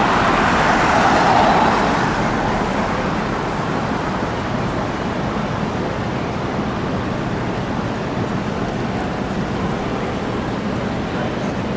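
Street traffic noise: road noise from passing vehicles, louder for the first two seconds and then a steady hum.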